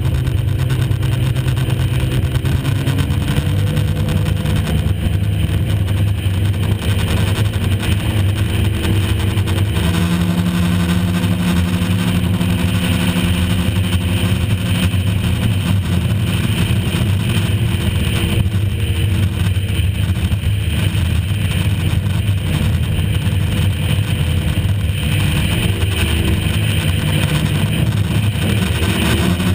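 High-performance custom boat's engine running steadily at cruising speed, heard from on board over the rush of wind and water; its note steps slightly up and down a few times as the throttle changes.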